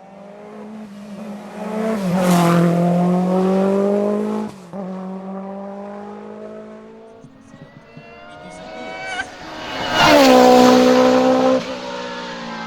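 Race car engine at high revs running hard up a hillclimb course. It grows loud twice, about two seconds in and again near the end, and each time the engine note cuts off abruptly.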